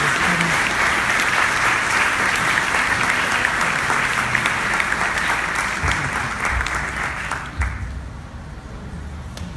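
Audience applauding, the clapping thinning out and stopping about three quarters of the way through.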